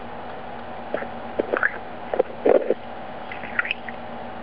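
Telephone line on hold: a steady hum with a scatter of short clicks and knocks from about one to three seconds in, and a few faint brief high blips near the end.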